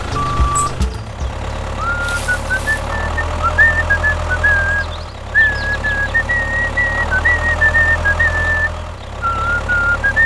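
Tractor engine sound running steadily and low, with a string of short, high beeping notes that hop between a few pitches over it. The engine dips briefly twice.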